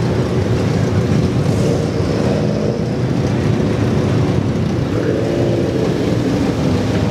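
Car engines running at low speed: a steady engine and exhaust drone with road noise.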